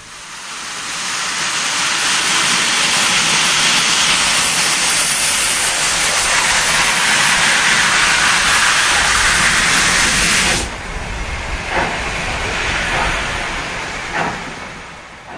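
Steam locomotive letting off steam: a loud, steady hiss that swells up over the first couple of seconds and cuts off sharply about ten and a half seconds in. A quieter hiss with a few soft knocks follows and fades away near the end.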